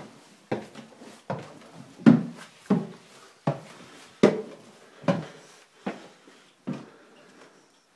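Footsteps on wooden stairs: about nine steady thuds, a little over one a second, stopping near the end.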